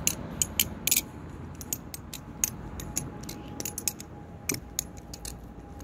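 Balisong (butterfly knife) trainer being flipped in rollovers: a string of sharp, irregular clicks from the handles swinging on their pivots.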